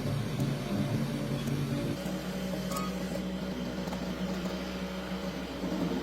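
Rebuilt Toyota 2L four-cylinder diesel engine running steadily, its note stepping up to a higher engine speed about two seconds in.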